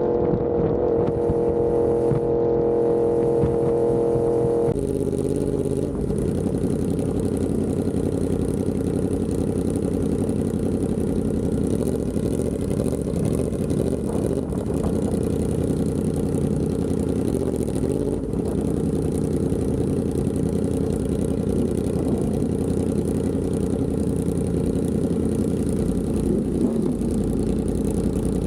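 Yamaha R1M's crossplane inline-four through an SC Project exhaust, holding a steady drone for about five seconds, then dropping to a lower, rougher rumble as the bike rides slowly.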